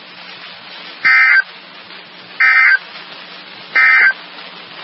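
Emergency Alert System end-of-message SAME data bursts from NOAA Weather Radio: three short, loud buzzing bursts of digital tones about a second and a half apart, over steady radio hiss. They mark the end of the flash flood warning broadcast.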